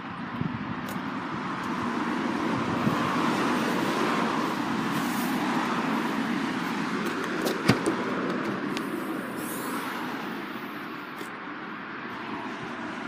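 Road traffic noise that swells and fades like a vehicle passing, with a sharp click about eight seconds in.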